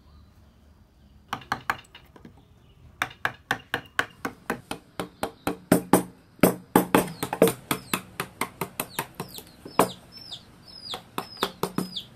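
A mallet striking a wood-carving chisel into a wood panel: a quick run of sharp knocks, about four or five a second, starting about a second in. Short high falling chirps come through between the knocks in the last few seconds.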